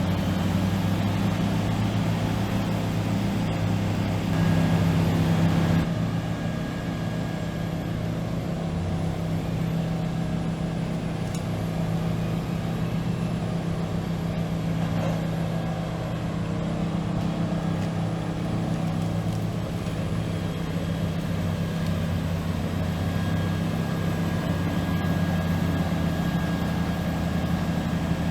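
Heavy diesel engine of an industrial whole-tree shredder running steadily, a deep even hum. It drops slightly in level about six seconds in.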